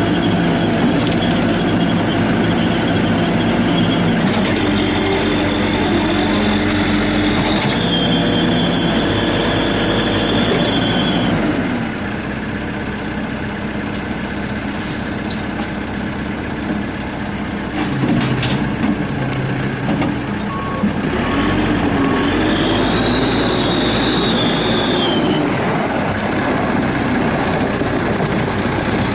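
1995 Caterpillar 436B backhoe loader's diesel engine running, its pitch shifting up and down several times as the engine speed changes. A high whine rides over it at times, and the engine runs quieter for a stretch in the middle.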